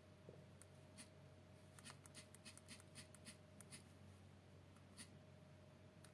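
Near silence: a scatter of faint, sharp clicks and light taps, bunched together about two seconds in, over a steady low electrical hum.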